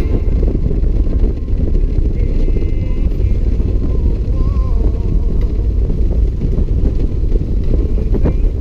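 Touring motorcycle ridden at road speed: a steady engine drone mixed with heavy, low wind rumble on the microphone.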